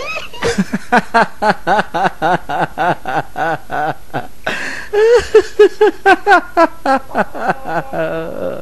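A man laughing hard in a long run of quick, rhythmic 'ha-ha' bursts, about four a second, loudest just past the middle.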